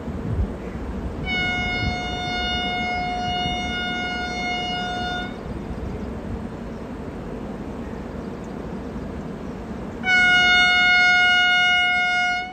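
Train horn sounding one long, steady blast of about four seconds, then a second, much louder blast about ten seconds in, over the steady rumble of passenger coaches rolling past on the track.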